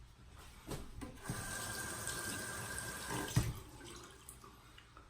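Sink tap running for about two seconds, then shut off with a knock.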